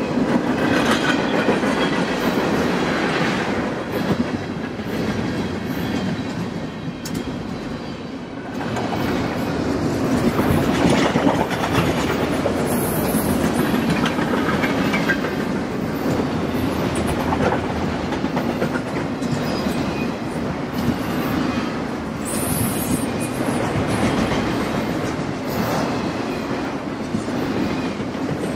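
Long freight train's cars rolling steadily past on the rails, a continuous rumble of wheels on track as tank cars, flatcars and autorack cars go by.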